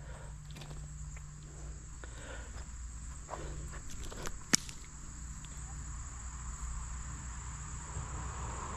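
Insects shrilling steadily in one unbroken high-pitched note, with faint soft scuffs and taps and one sharp click about four and a half seconds in.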